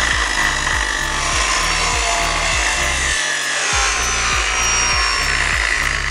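Angle grinder cutting through a steel bolt on a truck frame: a steady, loud, high grinding of the disc biting into metal.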